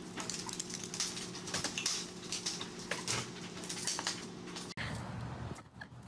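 Repeated rattling and clattering of a wooden pet gate as small dogs push against it and knock it flat on a tile floor, with many sharp knocks and clicks.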